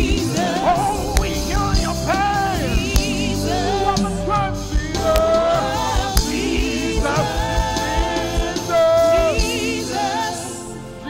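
Gospel singing: voices with microphones sing a slow, wavering melody with vibrato over band accompaniment and a steady kick-drum beat.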